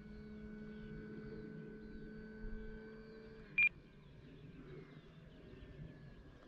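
Distant electric motor and propeller of an E-flite Carbon-Z Cessna 150T RC plane in flight: a faint, steady whine that dips slightly in pitch and fades about three and a half seconds in, as the throttle comes back. Just after the dip comes a single short, high beep from the radio transmitter, the loudest sound here.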